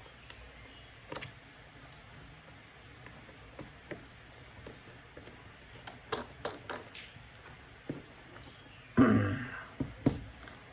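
Scattered small clicks and taps of a screwdriver and screws being worked on a MacBook Pro's bottom case, with one louder knock about nine seconds in.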